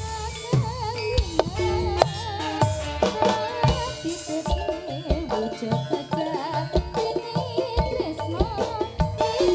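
Javanese jaranan music: hand drums beating a busy, steady rhythm under a wavering, ornamented melody line.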